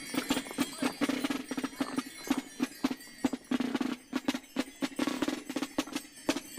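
Drumming with a dense, uneven clatter of sharp wooden knocks over a steady low drone.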